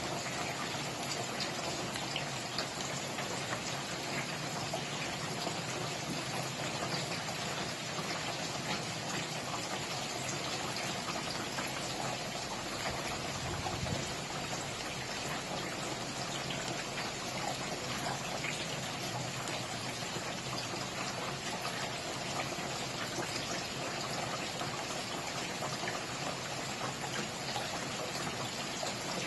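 Steady rain falling, a dense even hiss with many individual drops ticking on a surface.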